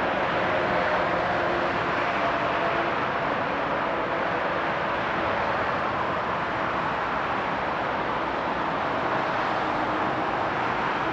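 Boeing 757-200 freighter's jet engines running steadily on a ground engine test: an even rushing noise with a faint whine underneath.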